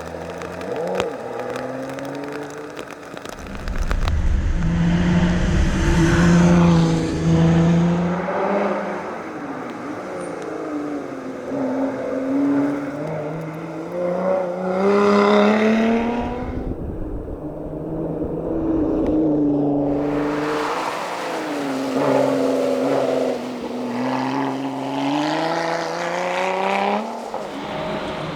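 Lotus Exige Sport 410's supercharged V6 engine being driven hard, its note climbing through the revs and dropping back at each gear change. About two-thirds of the way in it falls away as the throttle is lifted, then pulls up hard through the gears again.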